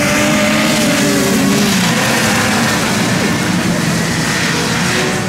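Several racing snowmobiles at full throttle climbing a hill together, their engines overlapping and shifting in pitch, growing slightly fainter near the end.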